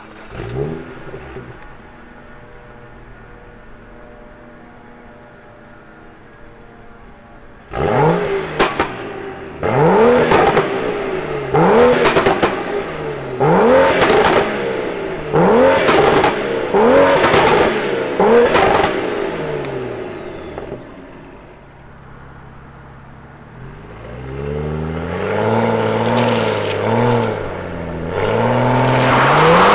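Exhaust of a 2015 BMW 335i's N55 turbocharged inline-six, stock catback with a catless downpipe and Pure Stage 2 turbo. A quick blip is followed by idle, then about seven free revs in a row, each rising and falling with sharp cracks. After a short idle, the revs climb again in several steps near the end.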